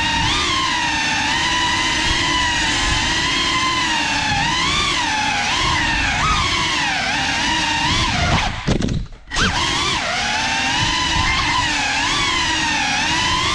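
GEPRC CineLog35 cinewhoop drone's motors and propellers whining, the pitch wavering up and down with the throttle. The sound drops away briefly a little after halfway, then picks up again.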